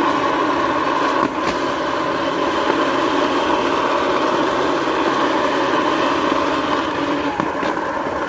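Small engine of a motorized rail cart running steadily as it travels along the track, with a couple of faint knocks about a second in and near the end.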